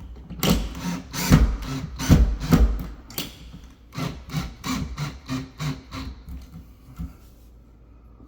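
A drill, not an impact driver, driving screws into the underside of a handrail in short pulses of the trigger, about two a second at first and then a little quicker, stopping about seven seconds in.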